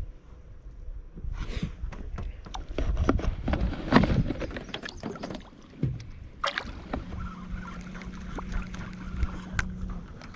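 Clattering knocks and taps on a small fishing boat as gear and a freshly landed bass are handled, loudest about four seconds in, followed by a steady low hum for about three seconds.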